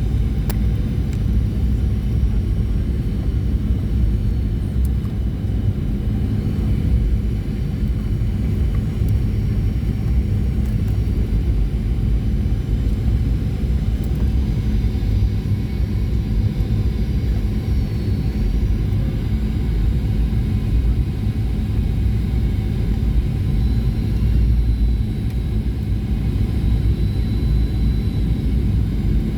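Boeing 737-800 cabin noise in flight: the steady low rumble of its CFM56 turbofan engines and the airflow over the fuselage, heard from inside the passenger cabin.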